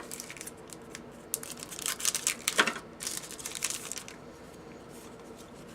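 Trading-card pack and cards being handled: a few bouts of papery crinkling and rustling in the first part, then fainter handling noise.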